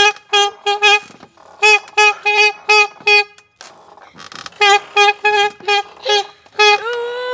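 Saxophone blown in short, choppy repeated notes, mostly on one pitch. It pauses for about a second partway through, then plays a longer held note near the end that sags in pitch.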